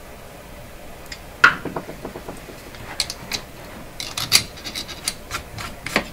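Small metal parts handled on a workbench while a part is fitted into a cordless drill's chuck and the chuck is worked by hand: a sharp knock about a second and a half in, then a scattered run of clicks and scrapes.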